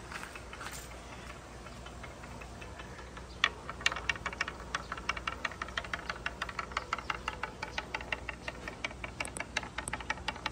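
A marble rolling along a wooden wave track, clicking in a rapid, even run as it rides over the carved dips. The clicking begins about three and a half seconds in.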